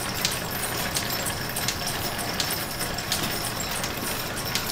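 Electric-motor-driven overhead line shaft and its flat-belt pulleys running, giving a steady mechanical clatter with a sharp tick about one and a half times a second.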